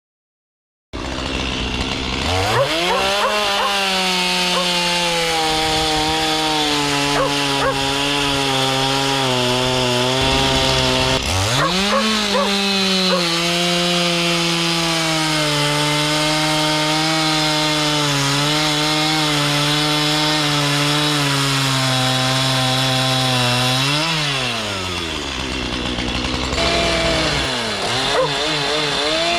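Two-stroke chainsaw cutting into a Scotch pine log, starting about a second in and held at high revs. It drops back twice and revs up again.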